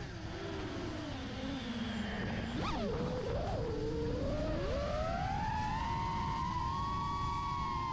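Whine of a 5-inch FPV quadcopter's brushless motors and props (iFlight Nazgul Evoque F5), its pitch rising and falling with the throttle. It starts low after a sharp drop, blips briefly about a third of the way in, then climbs and holds high through the second half, over a low rushing noise.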